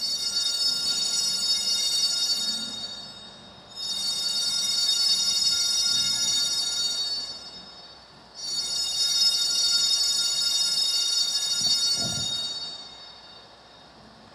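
Altar bells shaken in three long rings, each held for a few seconds and then fading, a bright shimmering jingle: the signal for the elevation of the chalice at the consecration of the Mass.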